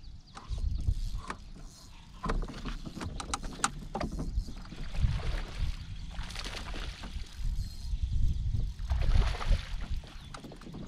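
Scattered knocks and clicks of someone moving about on a small jon boat's deck while flipping a fishing rod, over a low rumble of water and wind around the hull.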